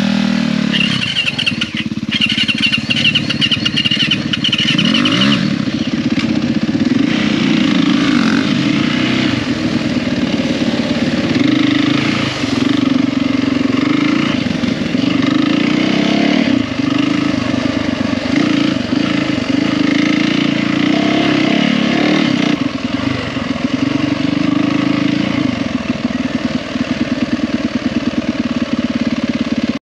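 A Yamaha WR450F single-cylinder four-stroke dirt bike heard from the rider's seat while being ridden along a trail. The engine revs rise and fall with the throttle and gear changes throughout.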